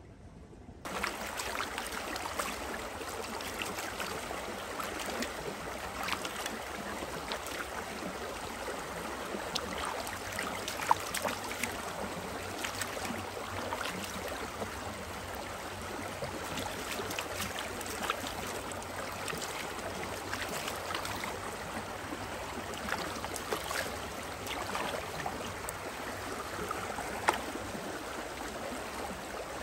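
Shallow creek running over stones, with hands splashing and scooping in the water; toward the end, potatoes on a plate are rinsed in the current. The water starts suddenly about a second in, with a few sharper splashes standing out.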